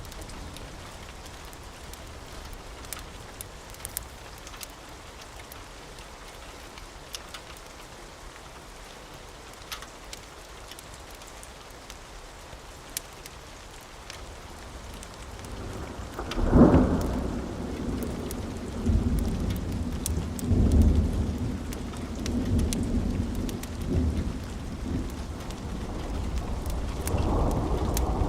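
Steady rain with scattered faint clicks, then about halfway through a sudden loud thunderclap followed by rolling thunder that rumbles on and swells again near the end.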